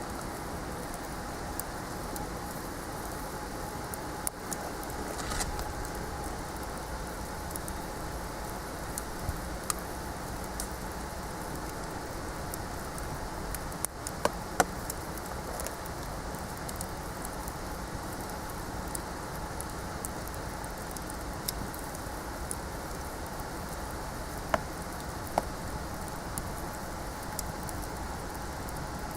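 Wood fire burning with a steady hiss, scattered small crackles, and a few louder sharp pops.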